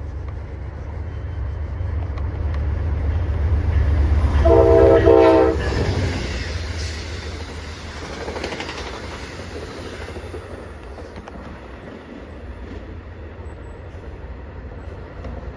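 Amtrak/VIA passenger train approaching and passing: a low rumble builds as it nears. The locomotive sounds its horn in two short blasts in quick succession about four and a half seconds in. The rumble then eases off as the coaches go by.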